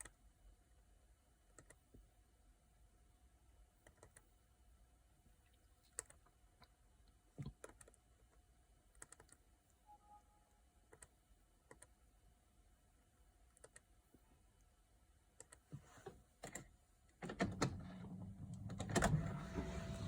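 Scattered clicks of typing on a computer keyboard, with a short electronic beep about ten seconds in. About three seconds before the end, a louder, jumbled noise sets in.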